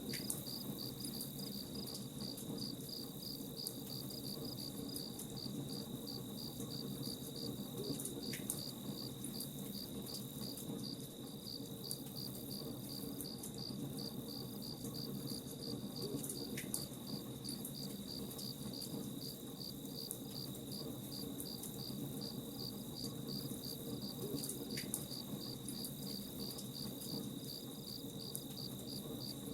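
Crickets chirping in a fast, even pulse over the steady low crackle of a campfire. Now and then a sharp pop, three times in all.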